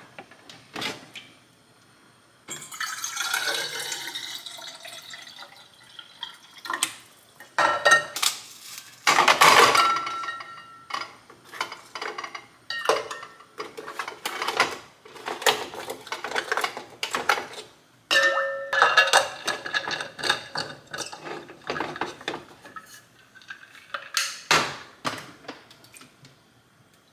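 Kitchen handling sounds: water poured into a metal water bottle for a few seconds near the start, then a long run of clinks and knocks as dishes, a ceramic dish and a plastic filter pitcher are picked up and set down on the counter.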